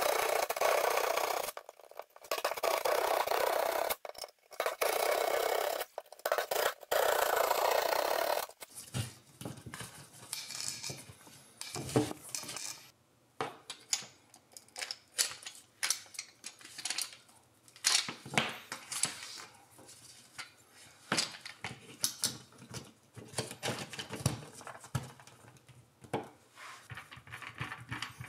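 Loud rushing noise in several short bursts, then a long run of light clicks, taps and rattles of small hard parts being handled during the cable and cover-plate work.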